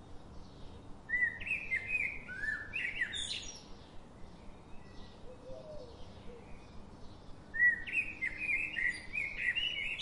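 Birdsong: two runs of quick, rising chirping phrases, about a second in and again near the end, with faint short chirps between over a low steady background hiss.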